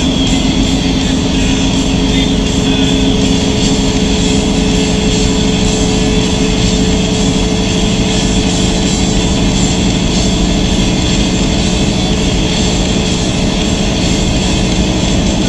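Semi-truck's engine and road noise heard inside the cab, a steady drone with several constant humming tones over a low rumble, as the truck rolls down a highway grade.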